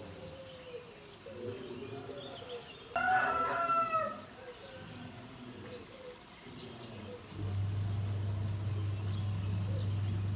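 A rooster crows once, about three seconds in, a call of about a second over faint background sounds. A steady low hum starts about seven seconds in.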